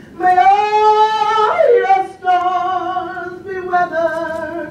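A woman singing long held notes with vibrato, her voice stepping up and gliding between a few notes about a second and a half in.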